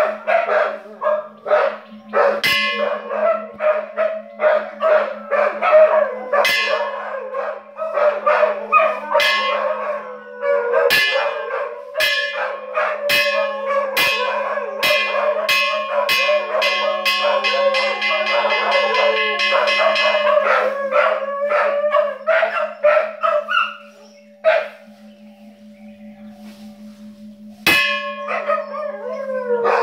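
Large hanging temple bell struck over and over, ringing, up to about two strikes a second, with dogs howling along under it. The strikes pause for a few seconds near the end, then come once more.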